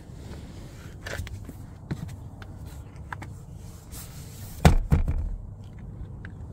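Rear centre armrest of a Lexus ES350's back seat folded down, landing with a double thump about two-thirds of the way in. Small clicks and rubbing from handling come before and after it.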